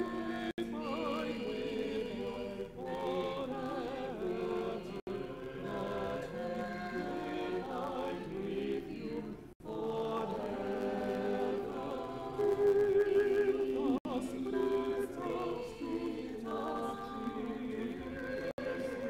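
A church choir of adult and children's voices singing slowly in parts, sustained chords moving from note to note. The sound cuts out for a split second several times.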